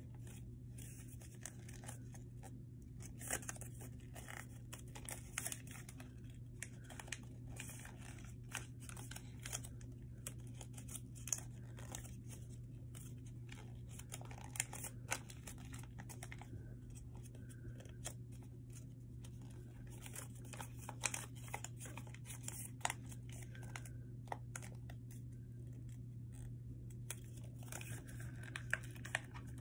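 Paper being folded and creased by hand: faint scattered crinkles and rustles over a steady low hum.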